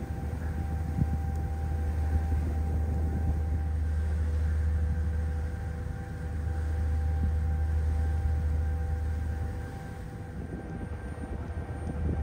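Ferry's engines running: a steady low rumble with a faint constant hum over it, easing a little near the end.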